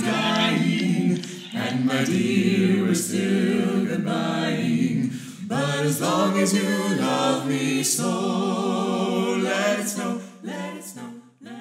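Small a cappella group of carolers, men's and women's voices, singing in close harmony: sustained chords broken by short pauses, growing quieter near the end.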